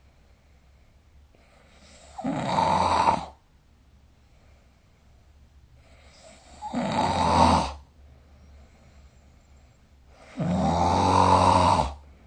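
A sleeping person snoring: three loud snores about four seconds apart, each lasting a little over a second, with near quiet between them.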